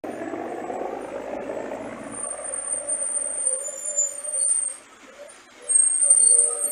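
Cable car line running over a support tower: the haul rope and tower sheaves give a steady hum with a thin high-pitched whine above it, getting louder as a gondola cabin passes the tower.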